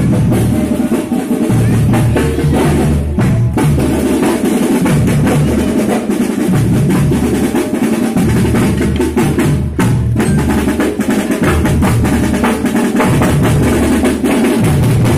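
School marching drum band playing loudly up close: bass drums beating a repeating pattern under rolling snare drums, with bell lyres (marching glockenspiels) ringing over them.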